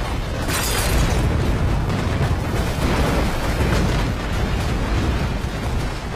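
A house exploding: a loud blast with a sharper crack about half a second in, carrying on as a heavy, continuous rumble.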